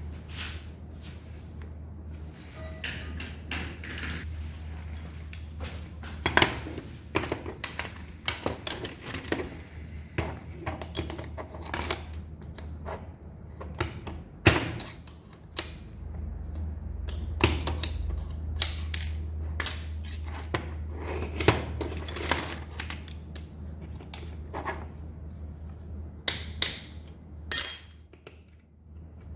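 Small metal parts and tools clicking, tapping and clinking irregularly during hand assembly of a model, over a steady low hum.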